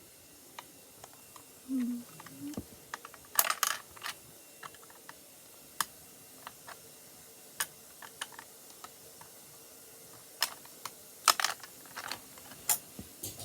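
Plastic Lego pieces clicking and clattering as they are handled and pressed together, in scattered sharp clicks with small clusters about three and a half seconds in and again near the end.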